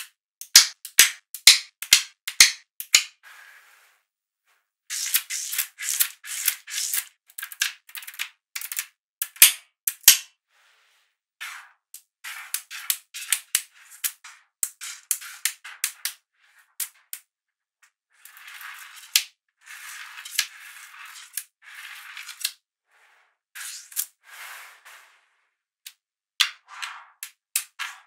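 Small magnetic balls clicking and snapping together in quick irregular runs of sharp ticks, with short pauses between runs.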